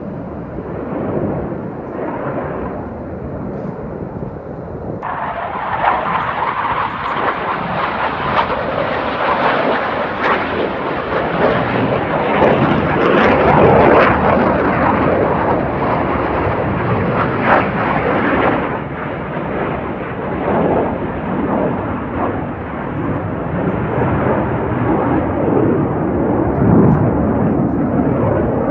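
Fighter jet's engines during a low pass: the jet noise jumps up about five seconds in, is loudest around the middle, then eases off as the jet climbs away.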